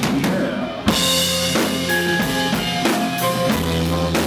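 Heavy rock band music comes in with a sharp drum hit about a second in. A drum kit then keeps a steady beat of about two strokes a second under long bass notes and held guitar notes.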